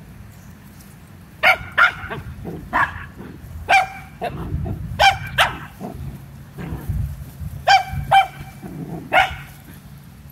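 A puppy barking in short, high-pitched yaps, about ten of them in twos and threes, starting about a second and a half in.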